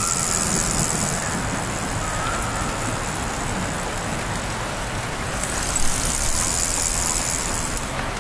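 Steady riding noise from a vehicle sound effect, running without a break, with a brighter hiss that swells from about five seconds in until near the end.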